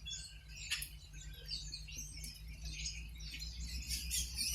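A large flock of birds chirping and chattering, many short overlapping calls, with a few light ticks mixed in.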